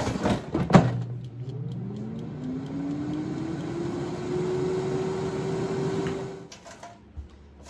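Paula Deen 9.5-quart air fryer: the basket is pushed back in with a couple of knocks, then the fan motor spins up with a rising whine and runs steadily with a rushing of air before cutting off about six and a half seconds in.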